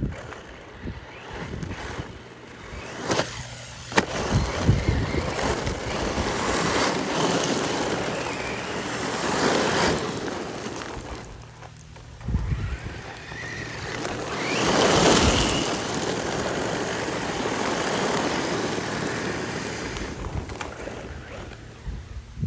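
Losi TEN-MT brushless electric RC monster truck running flat out on loose gravel: a hiss of tyres spraying gravel and dust that swells and fades several times as it passes, loudest about two-thirds of the way in. A brief rising motor whine comes through now and then, and there is a clatter of stones about four seconds in.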